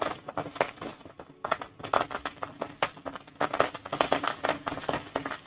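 Curry leaves, shallots and garlic frying in hot coconut oil, crackling and spluttering with irregular quick pops.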